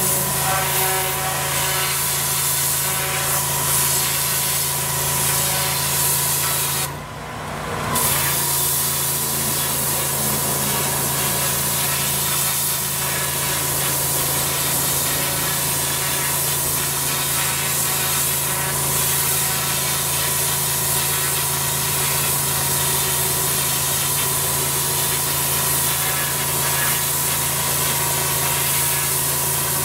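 Pressure washer running with a steady hum while a twin-headed rotary turbo lance blasts water onto block paving with a loud, continuous hiss. Once, the spray hiss briefly drops away and then comes back.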